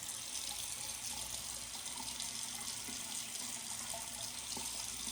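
Tap water running steadily into a sink while the head of a facial cleansing brush is rinsed under it.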